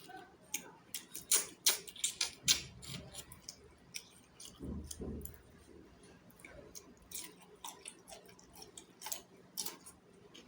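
Close-miked chewing of chicken feet curry: irregular, sharp wet mouth clicks and small crunches, busiest in the first few seconds, with a low soft thud about five seconds in.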